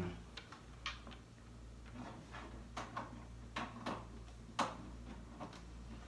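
Scattered light clicks and knocks of an HDMI cable being handled and plugged into the back of a flat-screen TV, over a faint steady low hum.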